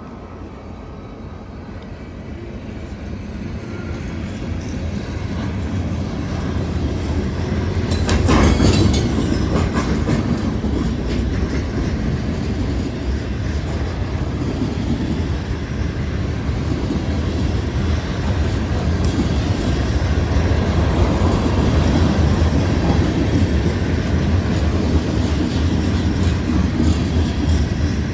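Freight train led by a pair of rebuilt SD70MAC diesel locomotives, growing louder as it approaches and loudest about eight seconds in as the locomotives pass. After that comes a steady rumble of freight cars rolling by.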